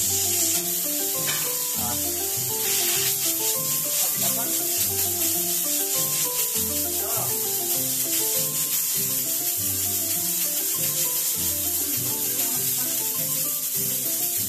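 Background music, a melody over a repeating bass line, with a steady high hiss.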